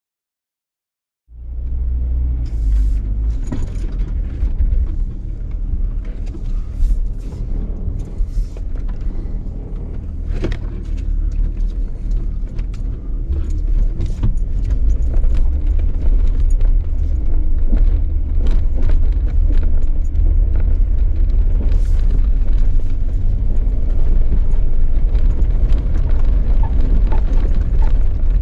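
Off-road vehicle driving a rough trail: a steady low rumble with irregular knocks and rattles. It starts suddenly about a second in and grows louder through the second half.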